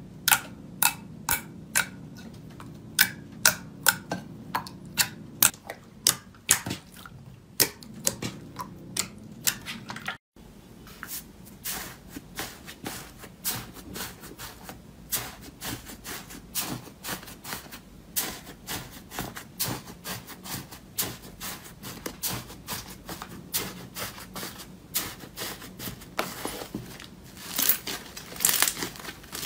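Hands pressing into glossy slime, sharp popping clicks from trapped air, a few a second. After a short break, hands tearing and squeezing crumbly orange foam slime with dense crackling that grows loudest near the end.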